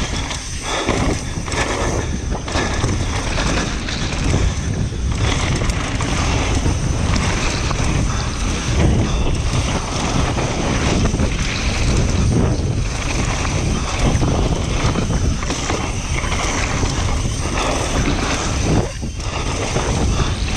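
Downhill mountain bike riding fast over a dirt trail: wind rushing over the action-camera microphone, with tyre noise and scattered knocks from the bike over bumps. Level dips briefly near the end.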